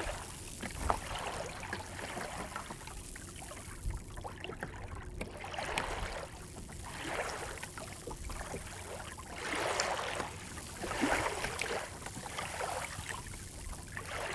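Water washing and gurgling along the hull of a small wooden sailing dinghy (a Welsford Navigator) under way at gentle speed, swelling and fading every second or two as it meets the small waves.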